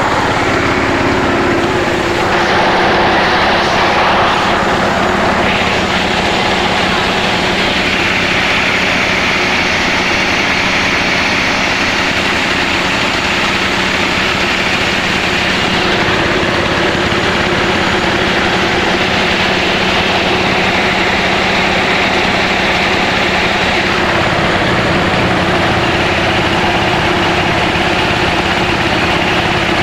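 Power tiller's single-cylinder diesel engine running steadily, driving a small rice mill while it mills rice.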